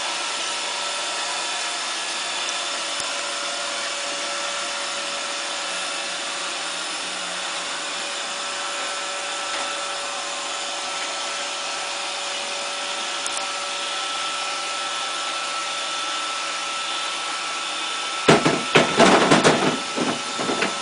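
iRobot Roomba robotic vacuum running, a steady whir of its vacuum motor and brushes with a few faint steady tones. Near the end a louder, uneven burst of sound breaks in over it.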